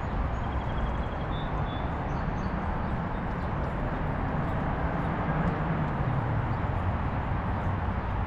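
Outdoor city ambience: a steady low rumble with a few faint bird chirps about a second in.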